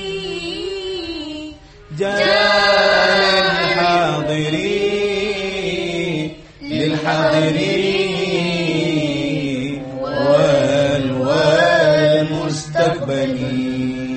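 Girls singing a line of Arabic verse in tarannum style, with long drawn-out notes that waver and glide in pitch. The singing breaks briefly for breath twice, at about two seconds and at about six and a half seconds.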